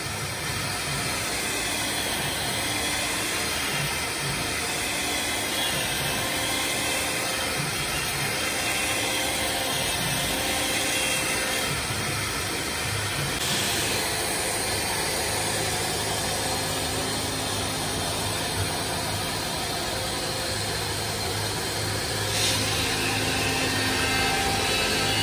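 CNC router spindle running steadily while its bit cuts grooves into a wooden board, a constant hiss with a faint wavering whine. The sound shifts slightly about halfway and again near the end.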